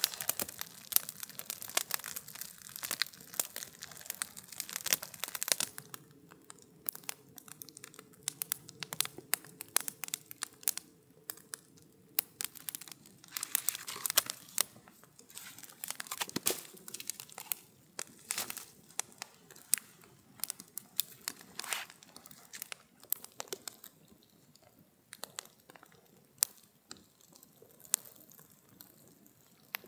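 Wood campfire crackling with sharp pops and snaps, busiest in the first six seconds and sparser after that.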